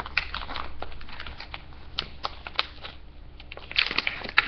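Rustling and crinkling of an MRE food pouch as an apple turnover is pulled out of it: irregular crackles, louder and busier near the end.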